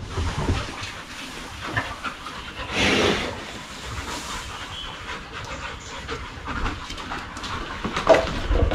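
Dogs panting, with one louder breathy blast about three seconds in.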